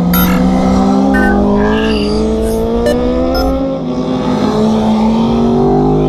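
Motorcycle engine pulling under steady throttle, its pitch climbing slowly as the bike gathers speed, over low road and wind rumble.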